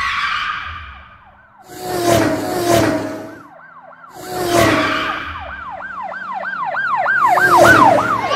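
A police siren sound effect sweeps quickly up and down, about three times a second, and grows louder toward the end. Before it come several loud noisy bursts, like crashes.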